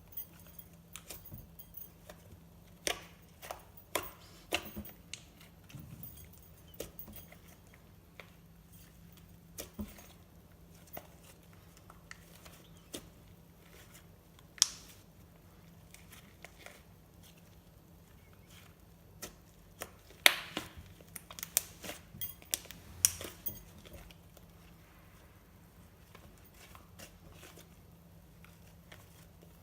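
Glossy slime being squished and worked by hand, giving irregular sharp clicks and pops, thickest about three to five seconds in and again around twenty to twenty-three seconds in.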